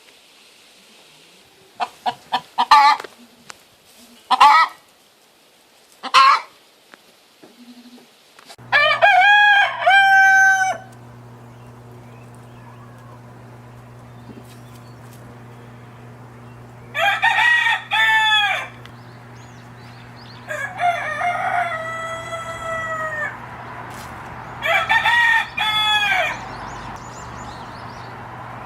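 Chicken calls: a few short clucks, then a rooster crowing four times, each a long cock-a-doodle-doo. A steady low hum sits under the crows.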